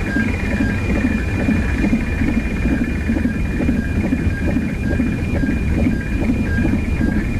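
Sound-effect bed of low, fluttering rumbling noise with a steady high electronic tone above it, and a second, lower tone that sounds in short beeps about once a second.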